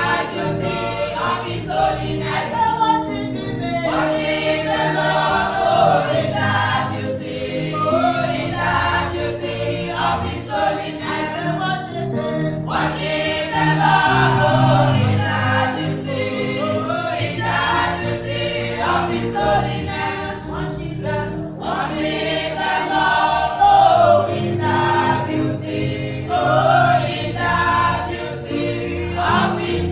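A choir singing a gospel song with instrumental accompaniment.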